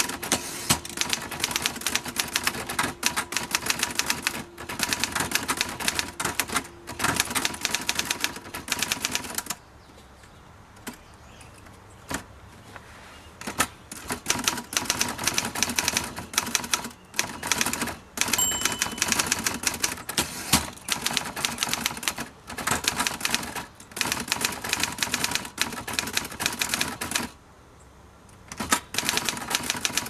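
1958 Royal FP manual typewriter being typed on at moderate speed: rapid keystrokes clacking, with the carriage returned by hand at the start. The typing pauses for a few seconds about a third of the way in and briefly again near the end.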